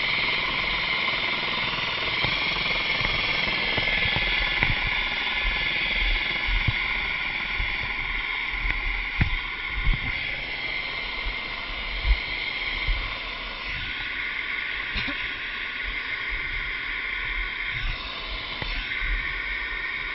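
Rescue helicopter (Eurocopter EC135) running on the ground, its turbine whine and rotor noise steady, with irregular low thumps on the microphone.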